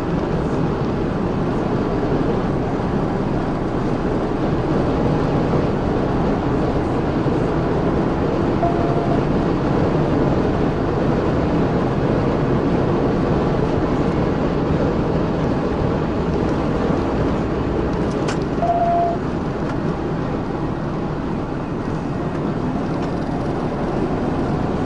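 Steady road and wind noise of a police cruiser driving at well over 100 mph, with two short beeps, about nine and nineteen seconds in.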